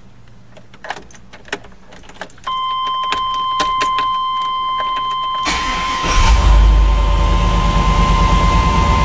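Keys click and jangle in the ignition, then a steady high-pitched warning tone comes on. About five and a half seconds in, the truck's swapped-in 5.3-litre LS V8 cranks, catches and runs loudly at idle.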